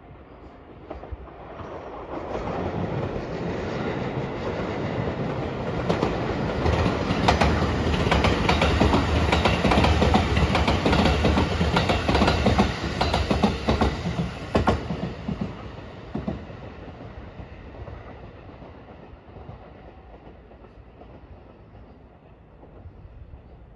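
Rapid Marine Liner electric train passing close by, its wheels clacking over the rails. It builds up, is loudest for several seconds in the middle, then fades away gradually.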